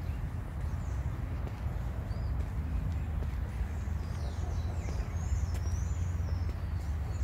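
Birds chirping and calling in the trees, most clearly in a short run of sweeping calls around the middle, over a steady low rumble.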